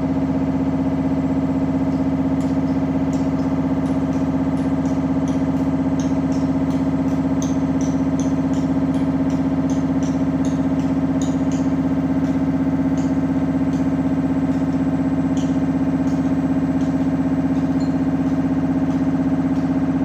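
Siemens IQ500 front-load washing machine running with a loud, steady hum and scattered light ticks: the abnormal noise the machine is being shown for.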